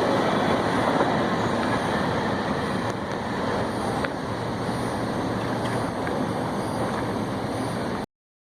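CSX freight train rolling past, a steady rumble of wheels on rail that slowly fades, with a few faint clicks; it stops suddenly about eight seconds in.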